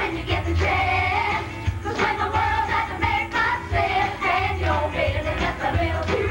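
Stage musical number: an upbeat song with a group of mostly female voices singing together over accompaniment with a pulsing low bass.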